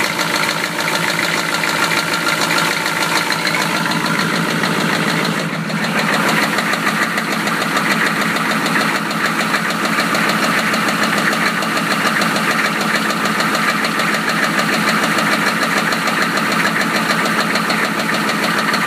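1993 Chevy engine running with a fast, steady knock, the sound of a knocking connecting rod bearing. It briefly dips about five seconds in, then carries on a little louder.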